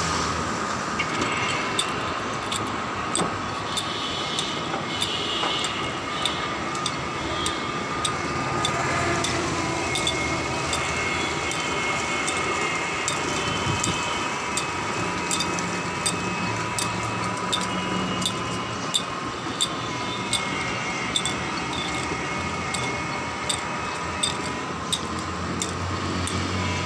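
Motor-driven sugarcane juice crusher running, its rollers pressing cane stalks fed in by hand. A steady mechanical drone with a high hum, and a regular ticking through it.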